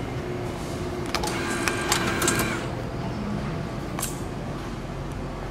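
Automatic ticket gate taking in a paper ticket: a short mechanical whirr with rapid clicks and a brief tone as the ticket is drawn through, then a single sharp click near four seconds in.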